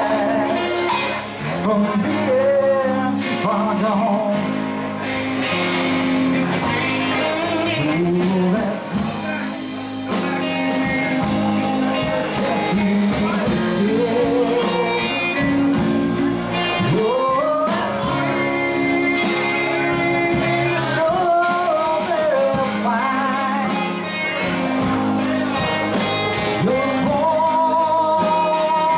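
Live band playing a song: strummed acoustic guitar, bass guitar and electric guitar, with a male singer.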